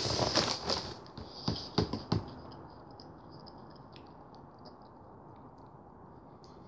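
Chewing a crunchy chocolate finger biscuit: a run of crunches in the first two seconds, then only faint clicks.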